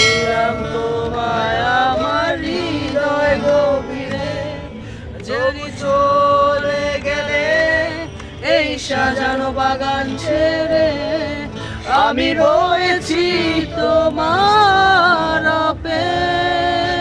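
A man singing to his own Yamaha acoustic guitar, holding long notes that waver in pitch.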